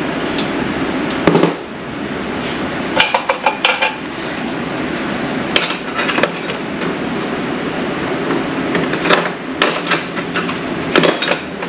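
Metal hand tools clinking and clattering in scattered bursts, as when sorting through a toolbox for a small wrench, over a steady background noise.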